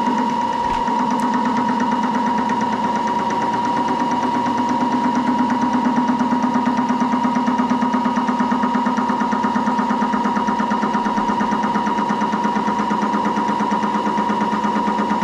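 Moore jig borer running, its spindle giving a steady high whine, with the boring head's cutter taking a cut in the lock part's internal radius. The cut adds a low, fast, even pulsing that starts as the cutter meets the work and grows louder about five seconds in.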